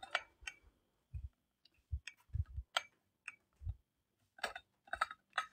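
Handling noise of a handheld phone carried through rooms: scattered light clicks and a few soft low thumps, likely footsteps.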